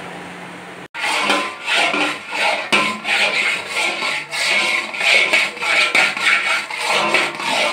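A metal spatula scraping and stirring thick khoa (milk cooked down to a paste) around an iron kadai, in repeated strokes about twice a second. Before it, a steady hiss and hum from the boiling milk pan cuts off suddenly about a second in.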